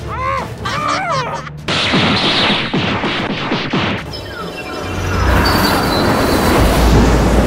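Cartoon sound effects: a strained, pitched vocal cry for about the first second and a half, then a loud rushing noise with falling sweeps, and from about five seconds in a deep rumble that grows louder.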